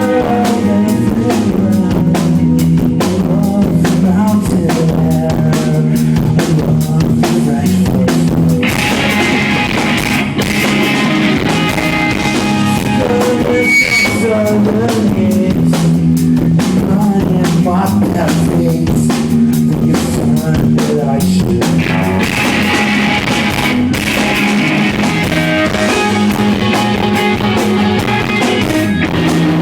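Live rock band playing: loud electric guitars with bass and a busy drum kit.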